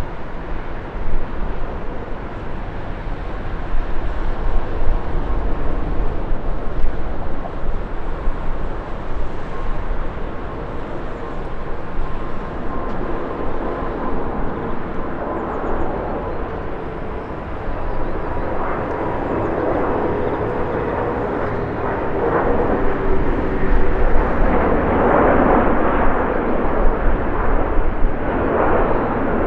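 Airbus A340-600 jet airliner on landing approach: four turbofan engines with a steady whine over a broad rumble, growing louder near the end as it comes closer.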